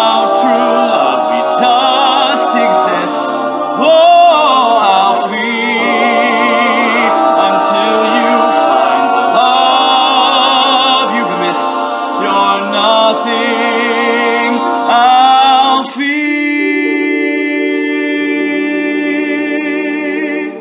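All-male a cappella group singing, with a male soloist carrying a wavering, vibrato-laden melody over the backing voices. About sixteen seconds in the group settles onto a long held chord.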